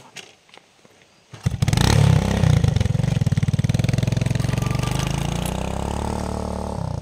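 A small engine starts about a second and a half in with a loud burst, then runs steadily with a fast, even firing rhythm, slowly easing in level.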